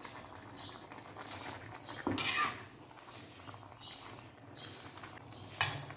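Metal spatula stirring and turning leafy greens in an aluminium wok, with two loud scrapes against the pan, one about two seconds in and one near the end. Short high squeaks come and go throughout, over a low steady hum.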